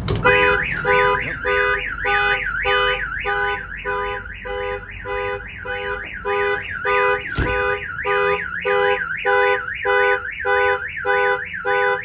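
Viper 5706V car alarm siren going off, set off by a tool-compartment door pin switch on the truck's service body: a warbling tone sweeping up and down about twice a second over a pulsing beep. It starts with a sharp click, and a single knock comes about seven seconds in.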